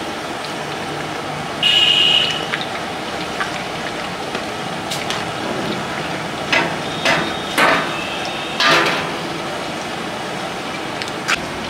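A ladle stirring chicken gravy in a large aluminium pot, knocking and scraping against the pot several times in the second half, over a steady hiss. A brief, louder ringing sound comes about two seconds in.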